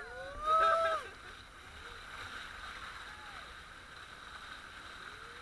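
A rider lets out a loud whoop that rises in pitch about half a second in, then a steady rush of water as the inflatable banana boat is towed through the sea.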